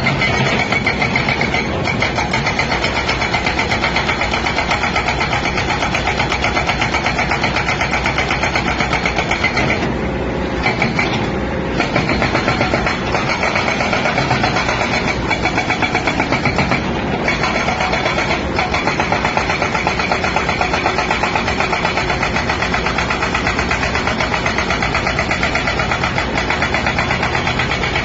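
Top-type hydraulic breaker on a 20-ton excavator hammering in a rapid, even rhythm over the excavator's running engine, with short breaks about ten seconds in and again a few seconds later.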